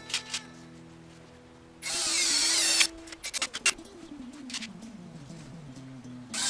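A handheld power tool switched on in short bursts of under a second, its whine falling in pitch as each burst starts, with background music between the bursts.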